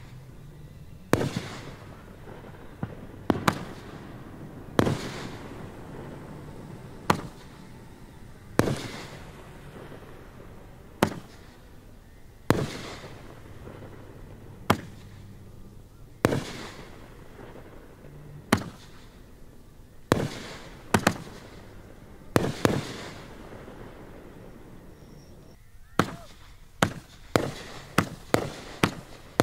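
Fireworks display shells bursting, a sharp bang every two seconds or so, each trailing off in a rolling echo. Near the end comes a quick run of bangs in close succession.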